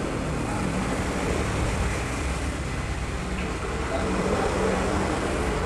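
Hot-air rework station blowing steadily with an even rushing hiss, its airflow set at 1.5, heating a charging IC on a phone logic board to melt the solder and lift the chip off.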